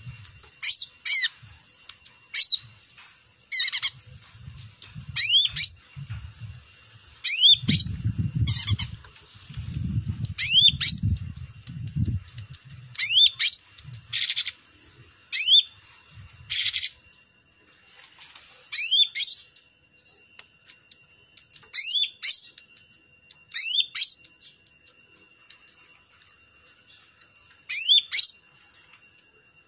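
A cucak ranting, a green leafbird, singing. It gives short, quick whistled phrases of sweeping notes every second or two, with a few harsh rasping notes mixed in and a couple of short pauses.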